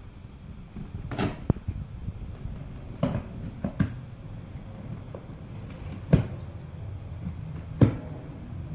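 Golden retriever chewing and tearing at a cardboard box: scattered sharp crunches and rips at irregular intervals, the two loudest in the second half.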